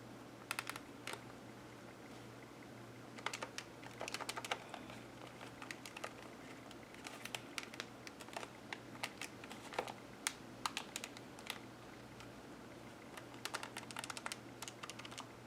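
Irregular bursts of small, sharp plastic clicks and taps from handling the TI-83 Plus graphing calculator, over a faint steady low hum.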